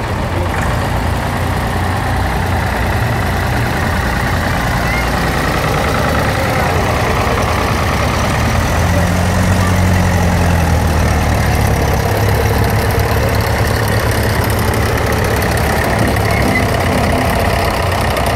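Procession of vintage tractors driving slowly past, their engines running with a steady low rumble that swells about halfway through as a blue Fordson Major passes close by.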